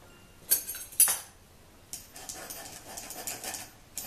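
Two sharp metal clinks, then a spoon scraping dry flour and semolina through a stainless-steel mesh sieve over a glass bowl in quick strokes, about three a second.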